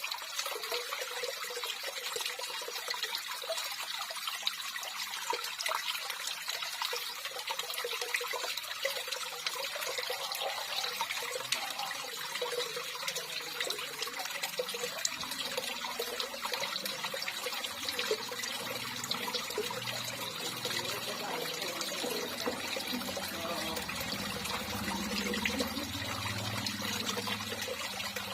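Water flowing and trickling steadily.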